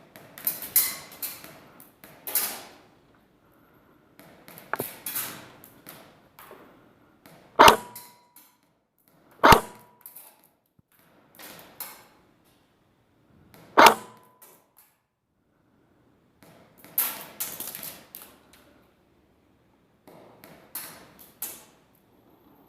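Airsoft gun firing three single shots, each a sharp crack well apart from the others. Between them are stretches of scratchy rustling.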